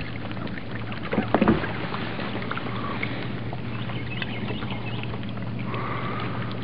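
A boat motor running steadily with a low hum, over a hiss of water and air noise, with one short louder noise about a second and a half in.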